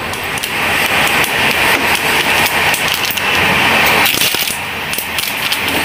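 Running noise inside a moving Gitanjali Express sleeper coach: a steady rumble and rattle, broken by many short clicks and knocks. Over it, a plastic water bottle is handled and pushed into the coach's dustbin, with a sharp knock about four seconds in.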